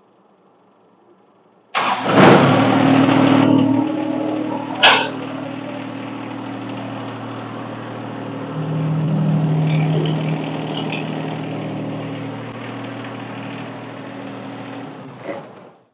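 John Deere 1025R compact tractor's three-cylinder diesel cranking and catching about two seconds in, then idling steadily. There is a sharp click about five seconds in, and the engine runs louder for a couple of seconds around nine seconds in. It is shut off just before the end.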